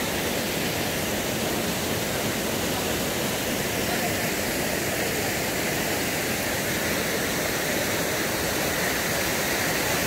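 Waterfall rushing: a steady, unbroken roar of water pouring over rock.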